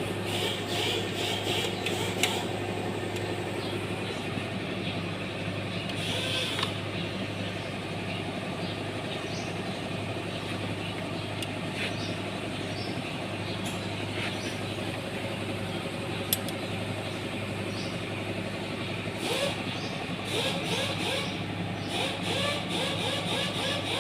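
New Holland TT4.90 tractor running steadily, with scattered sharp clicks and, near the end, a run of short squeaky chirps. The noise is put down to a damaged clutch pressure plate.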